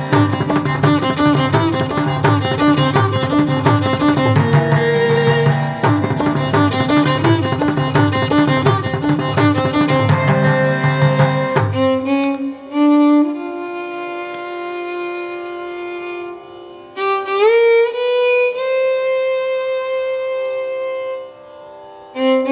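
Live Carnatic accompaniment: mridangam drumming under violin and other instruments in a steady fast rhythm. About twelve seconds in the drum stops and the violin carries on alone with long held notes and sliding glides.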